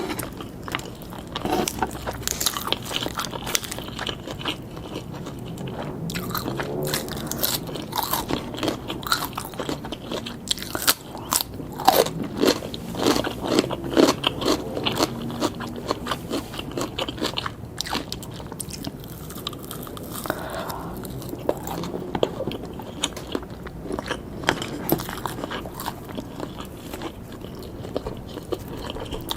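Close-miked biting and chewing of grilled pork skewers, with many small, irregular crunchy clicks.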